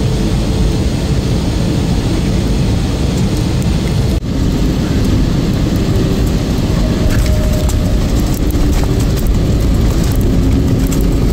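Jet airliner cabin noise: a steady rumble of engines and airflow on final approach, cut off abruptly about four seconds in. It is followed by a somewhat louder rumble with scattered rattling clicks as the plane rolls out on the runway just after landing, spoilers raised.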